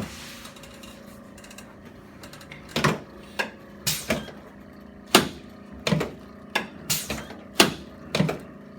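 A brief rustle, then a series of about ten sharp clacks and knocks, irregularly spaced half a second to a second apart, from a chiropractic treatment table as the patient turns onto her back and gets settled.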